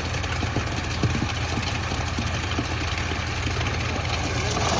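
Diesel engine of a Schwing Stetter SLM600 self-loading concrete mixer running steadily at idle, a low, even throb.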